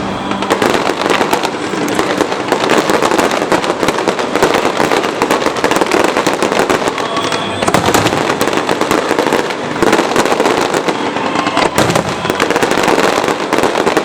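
Fireworks display: a dense, continuous barrage of overlapping bangs and crackles with no gaps.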